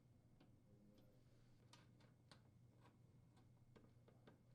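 Near silence with a few faint, irregular clicks: a screwdriver threading the screws that hold the two halves of a power-cord strain-relief clamp together.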